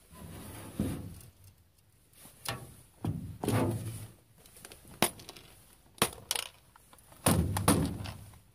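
Irregular knocks, thumps and light clatter of gear being handled in a canoe, with several sharp clicks and a few heavier dull thumps.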